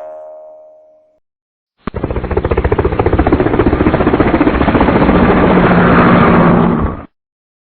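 A cartoon boing sound effect fades out, then after a short silence a loud sound effect of rapid, even pulses, like a helicopter or jackhammer, plays for about five seconds and cuts off suddenly.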